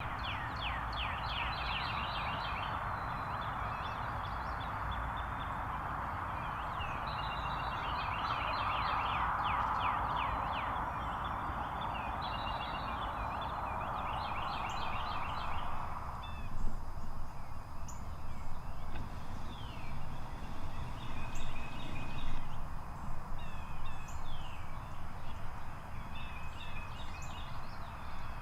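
Wild turkeys calling. For about the first sixteen seconds, rapid rattling calls come in repeated bursts over a steady hiss. After that, the hiss fades and a run of separate, sharper calls continues.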